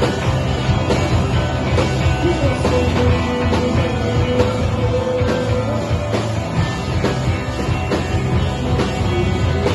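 Live rock band playing an instrumental passage on electric guitars and drums, loud and dense, with a long note held through the middle.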